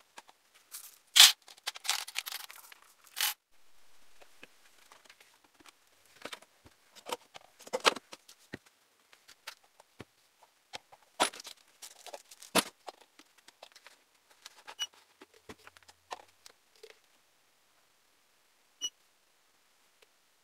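Hands handling plastic resin bottles and a mixing cup on a tabletop: scattered clicks, knocks and rustles. A few sharper knocks stand out, the loudest about a second in and twice more past the middle.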